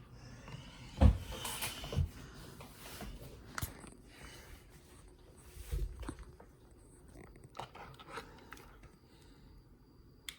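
Irregular knocks and thumps with rustling, the loudest about a second in and others spaced a second or more apart.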